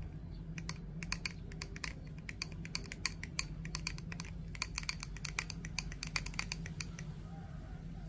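Quick, irregular clicks and short scratches of a metal tool against the Samsung Galaxy A04's glass, in flurries, starting about half a second in and stopping about a second before the end.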